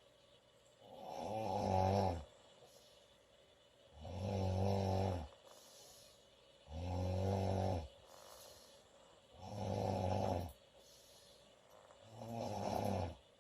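A woman snoring loudly in a steady rhythm: five low, buzzing snores of about a second each, one every two and a half to three seconds.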